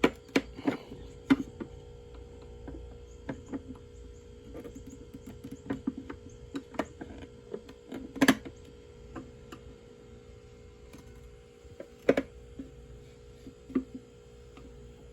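Irregular plastic clicks and knocks from a Honda Pilot tail light assembly being handled while its inner lens is pushed and pried back into the housing. The loudest knocks come about a second in, around eight seconds and near twelve seconds.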